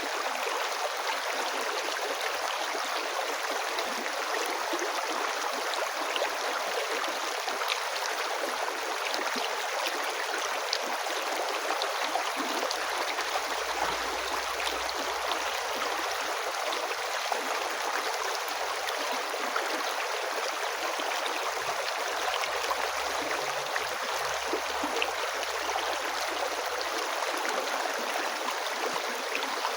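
A river flowing steadily: an even rush of water, flecked with small splashes and gurgles.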